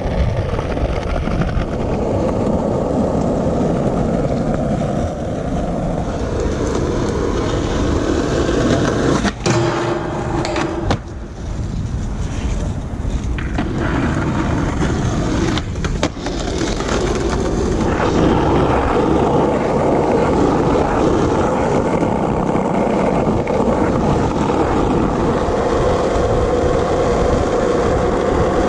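Skateboard wheels rolling over asphalt with a steady rumble. Several sharp clacks of a board cut in around ten seconds in and again around sixteen seconds in.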